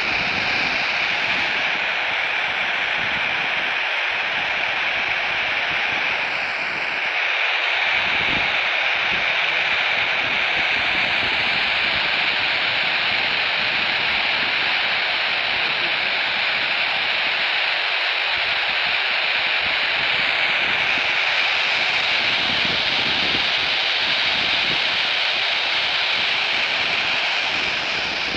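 Steady static hiss from a Baofeng handheld FM radio's speaker, tuned to the ISS downlink on 145.800 MHz with no voice coming through.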